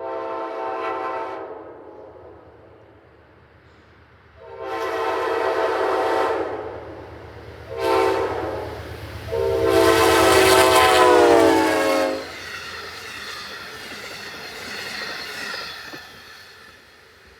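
Amtrak passenger locomotive's air horn sounding the grade-crossing signal of long, long, short, long. The last, longest blast drops in pitch at its end as the locomotive goes by. The train's passing rumble and wheel clatter follow and fade.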